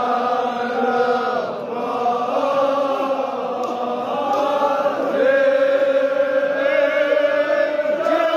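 A crowd of men chanting a Kashmiri marsiya lament together in long held notes, swelling louder about halfway through.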